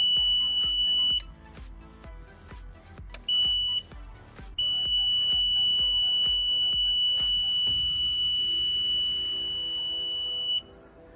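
A boat's warning buzzer sounding a steady high-pitched tone in three stretches: about a second, a short half-second beep, then a long six-second tone that cuts off near the end. The owner takes the alarm as the warning that the fuel pump is not running. A low rapid thumping runs underneath for the first seven seconds or so.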